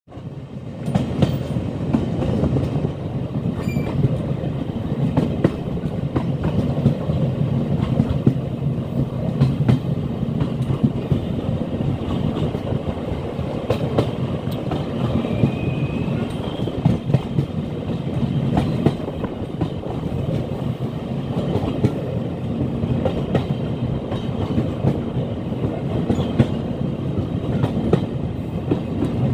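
Trains running on the rails: a steady rumble of steel wheels on track, with frequent sharp clacks as wheels pass over rail joints, from a passing freight train of flat wagons.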